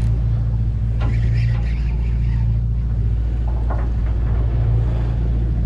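Party boat's engine running with a steady low drone.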